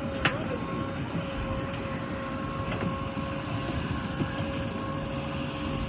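Heavy diesel engine of a working machine running steadily, with a constant whine over its rumble and a single click about a third of a second in.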